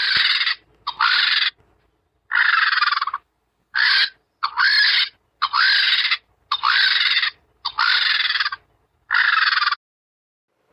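A bird's harsh, screechy calls, about nine in a row, each under a second long with short gaps between them.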